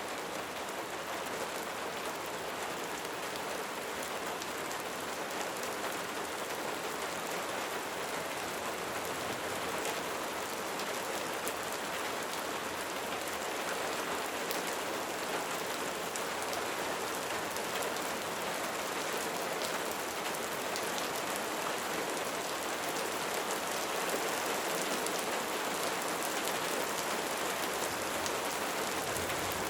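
Steady light rain falling, raindrops pattering on surfaces as a continuous even hiss with many small drop ticks.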